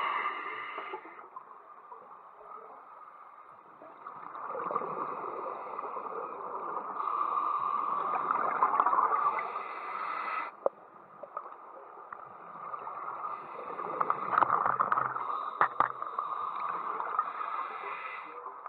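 A diver breathing through a scuba regulator underwater: long gurgling rushes of exhaled bubbles, two of them, the first cutting off abruptly about ten seconds in.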